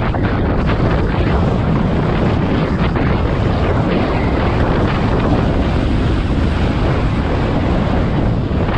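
Wind rushing over a helmet-mounted camera's microphone while riding an electric scooter, a loud steady roar of wind noise with road noise under it.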